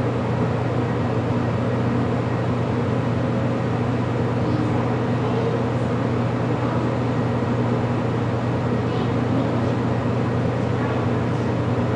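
Steady low mechanical hum, even throughout, with a few faint brief higher sounds over it.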